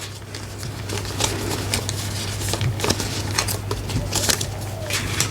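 Australian polymer banknotes and cash envelopes being handled and sorted: scattered crinkles, rustles and small clicks.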